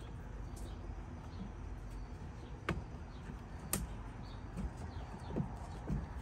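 A few scattered clicks and knocks of hands working a coolant hose onto the plastic coolant overflow tank's fitting, over a low steady hum.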